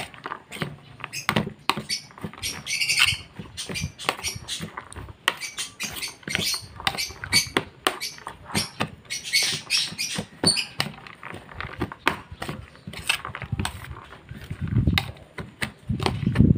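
A metal fork scraping and clicking against a plastic plate, with the rustle of chopped vegetables and egg being stirred and tossed by hand: a soft food mix for pet birds being mixed.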